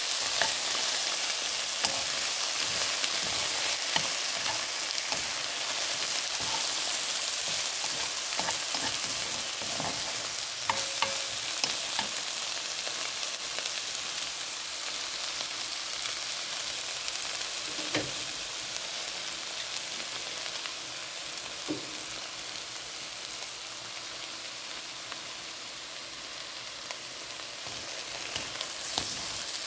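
Sliced shiitake mushrooms and onions sizzling in a frying pan as they are stir-fried, with a steady frying hiss and the spatula clicking and scraping against the pan now and then. The sizzle eases a little in the second half.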